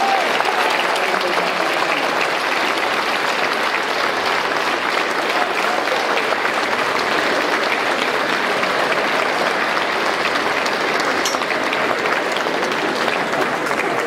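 Audience applauding steadily, a long round of clapping.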